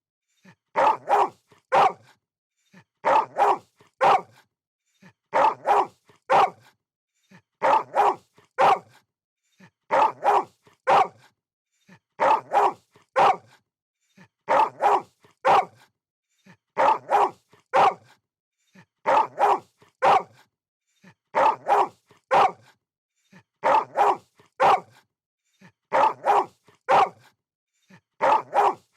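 Dog barking in clusters of about three quick barks, one cluster roughly every two seconds, in an even repeating rhythm.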